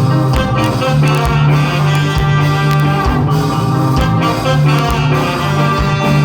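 Live ska band playing: horn lines over an offbeat groove with drum kit and bass, recorded from the audience.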